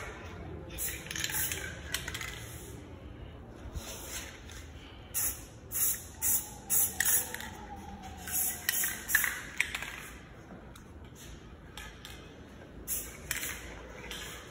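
Aerosol can of clear coat spraying in short hissing bursts, several in quick succession and then pauses, as a bike frame gets a coat of clear.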